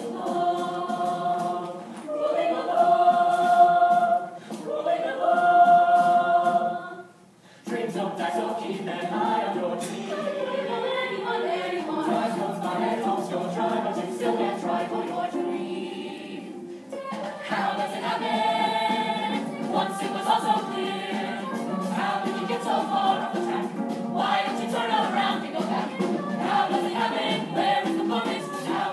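A musical-theatre chorus singing. Three long held chords come in the first seven seconds, then a brief break, then quicker ensemble singing.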